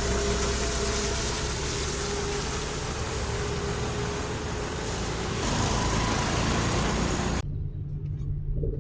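Heavy truck engine running steadily with a loud rumble and wide noise. It cuts off abruptly about seven seconds in, leaving a low hum.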